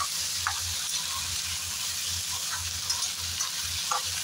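Diced potatoes and cumin seeds sizzling in hot oil in a kadhai, being stirred with a slotted steel spatula, with short scrapes of the spatula against the pan several times. The potatoes are being fried until lightly golden.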